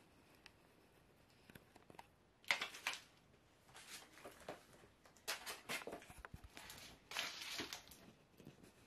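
Broken white foam pieces of a radio-controlled model aeroplane crunching under high-heeled shoes as they tread on them. A few faint ticks are followed by four bursts of crunching.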